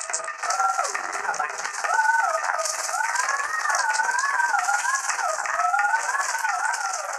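Cartoon background music: a wavering, gliding melody over a steady shaker rattle.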